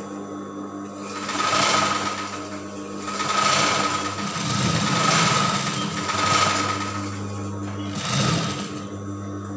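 Industrial lockstitch sewing machine stitching fabric in about five short runs, with a steady motor hum between them.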